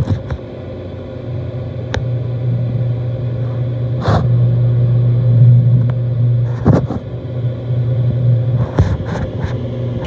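Intertherm mobile home gas furnace running with its burner lit: a steady low rumble of the flame and inducer, broken by a few brief knocks.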